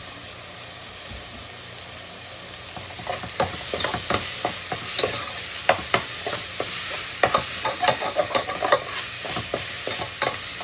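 Ground turkey sizzling as it fries in olive oil in a pot. About three seconds in, a utensil starts stirring it, with a rapid run of scrapes and knocks against the pot over the sizzle.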